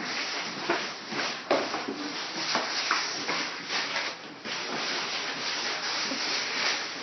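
Cardboard box and paper scraping, rustling and knocking on a tiled floor as a young puppy pushes and tugs at it, with many short sharp knocks through a continuous rustle.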